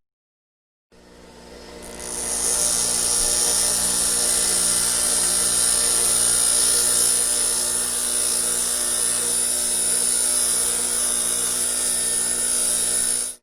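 Metal grinder running steadily, with a humming motor and a bright, high hiss. It starts about a second in, builds up over the next second, and cuts off abruptly near the end.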